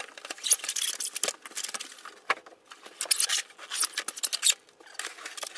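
Packaging rustling and crinkling in irregular bursts as a large statue is lifted out of its box.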